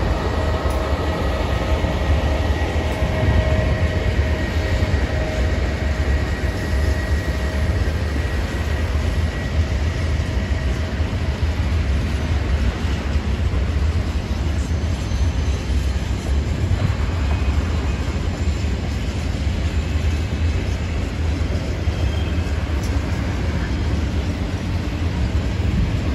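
Long freight train of open-top wagons rolling past at steady speed: a continuous heavy rumble of steel wheels on rail. A thin high whine fades out over the first several seconds.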